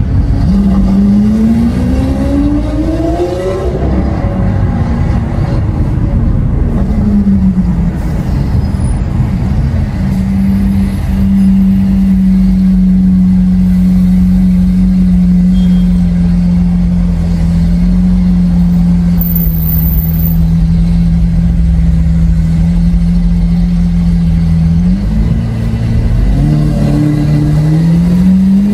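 Lamborghini Aventador SV's 6.5-litre V12 through a Capristo exhaust: the revs climb in a short pull about a second in and fall away. The engine then holds a steady note at cruising revs for a long stretch before rising again in steps near the end.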